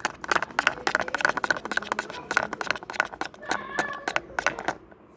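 A spoon stirring a thick homemade dish-soap slime in a bowl: a rapid run of clicks and wet squelches that stops near the end.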